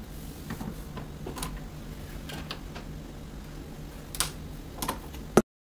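A screwdriver backs out the screws of a plastic light-switch faceplate and the plate comes off the wall, making scattered small clicks and scrapes over a low steady hum. Two sharper clicks come about four seconds in, and a loud one just before the sound cuts off abruptly.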